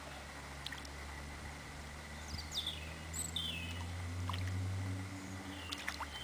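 Lakeside outdoor ambience: a low steady rumble with a few short, high bird chirps, a cluster of them a couple of seconds in and another near the end.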